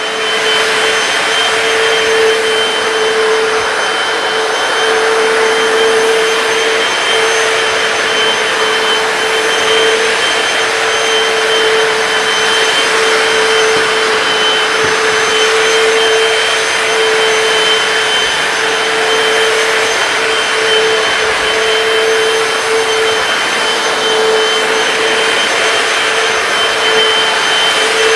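Hoover PowerDash hard floor cleaner running steadily as it is pushed over the floor: a constant rush of suction with a steady mid-pitched hum and a thin high whine above it.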